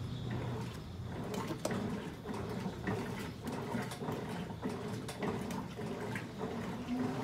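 Electrolux LM08A top-load washing machine agitating a load of clothes: water sloshing and splashing as the agitator turns, with many small irregular splashes and clicks and a low hum underneath.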